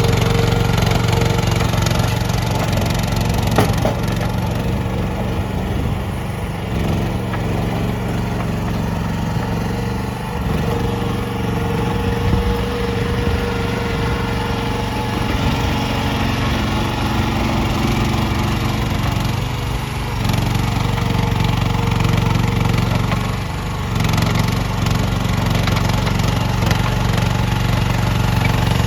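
AGROTK YSRT14 mini skid steer's engine running steadily, dropping a little in level about four seconds in and picking back up about twenty seconds in.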